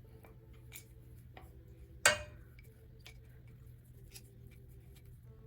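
A camera being screwed onto a clamp mount's threaded stud: faint small ticks and taps of hard parts being handled, with one sharp clink that rings briefly about two seconds in.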